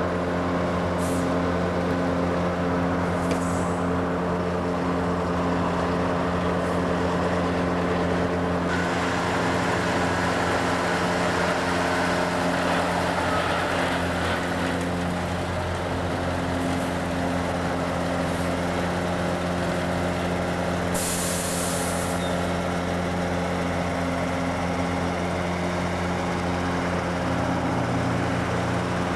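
Heavy diesel engine of a concrete mixer truck running steadily. A short hiss of released air, like an air brake, comes about three-quarters of the way through.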